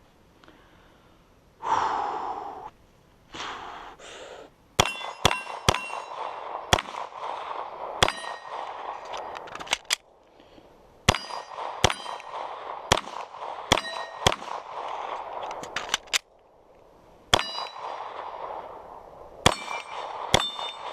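Rapid 9mm pistol shots from a Glock 34, each followed by the ringing clang of a steel target plate being hit, with two short pauses in the string. Two brief bursts of noise come before the first shot.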